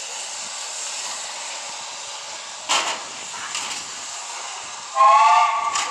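Steam locomotive hissing steadily off-screen, with a short burst of steam a little under three seconds in. About five seconds in, its steam whistle sounds, a loud chord of several steady tones.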